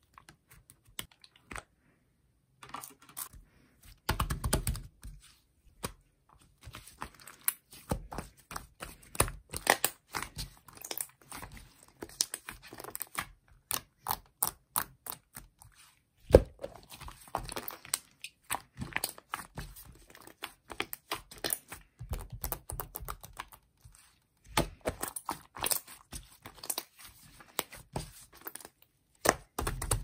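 Thick purple slime being scooped, stretched and pressed by hand: a dense run of sticky clicks and crackles as it pulls apart and squishes, with a few soft low thumps where it is pressed down.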